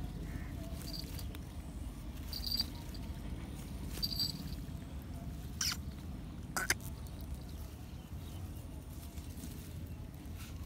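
Rustling and handling in the grass as a shikra holds down a freshly caught myna, with a few short high squeaks in the first half and two sharp clicks about a second apart near the middle.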